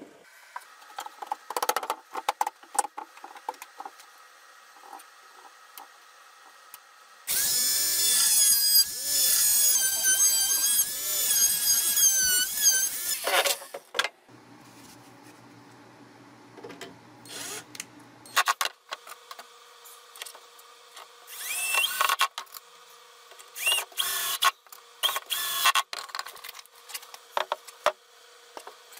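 Cordless drill running in bursts, most likely driving screws into pallet wood. After a few light wooden knocks, there is one long run of about six seconds with the motor pitch wavering, then several short bursts near the end.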